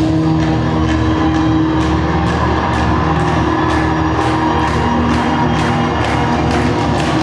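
Loud recorded music with sustained chords and a steady beat of sharp taps, about three a second.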